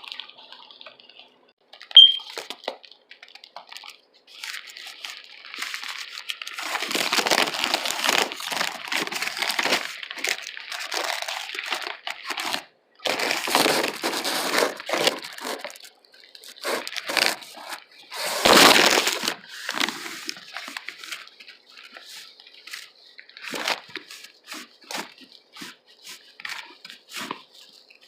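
Close-miked eating sounds from a loaded tuna sub sandwich: wet chewing and smacking with many small irregular crackles, densest in long stretches through the middle and with a stronger bite near two-thirds of the way in.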